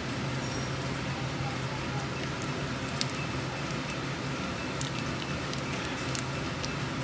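Foil masala sachet crinkling and clicking in the hands as thick paste is squeezed out of it onto raw chicken, over a steady low hum.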